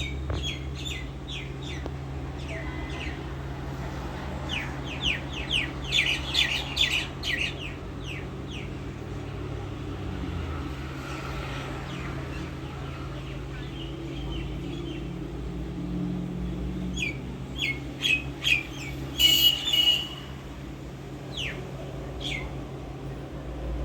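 A bird calling in quick series of short, sharp chirps, in two bouts about five seconds in and again from about seventeen to twenty seconds in, the loudest near the end of the second bout. A steady low hum runs underneath.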